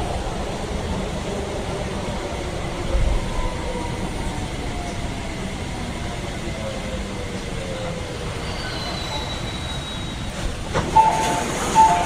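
Subway train running and slowing, its motor whine falling steadily in pitch, with a low thud about three seconds in. Near the end come two short high beeps.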